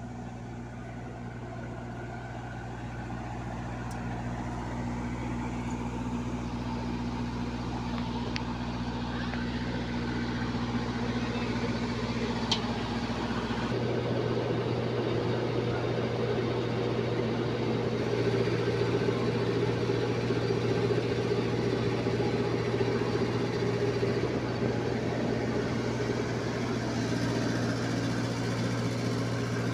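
Large diesel engine idling steadily with a low, even hum. About fourteen seconds in, its tone shifts abruptly, and it grows louder toward the end.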